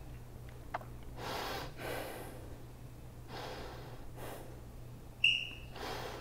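A woman breathing hard as she squeezes through a core exercise, several long breaths about a second apart. Near the end, a countdown timer gives two short high beeps a second apart, marking the last seconds of the interval.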